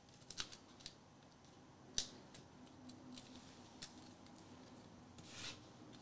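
Faint paper-handling sounds as a layered die-cut paper piece is fitted with foam adhesive Dimensionals and pressed onto a card: a few light clicks early on, one sharper click about two seconds in, and a soft rustle near the end.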